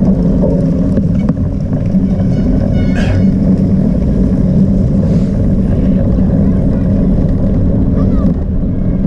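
Steady low rumble of wind buffeting an action camera's microphone, mixed with tyre and bike noise, as a cyclocross bike is ridden at race pace over grass.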